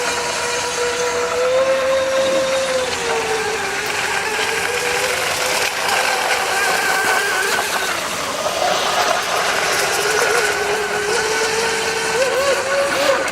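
Radio-controlled boat motors whining steadily, their pitch wavering and dipping as the throttle changes, with more than one tone at once.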